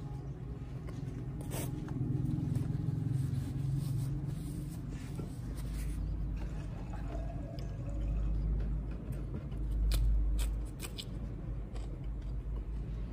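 Close-miked chewing of a hand-fed mouthful of spicy liver and tripe curry: wet mouth sounds with a few sharp clicks.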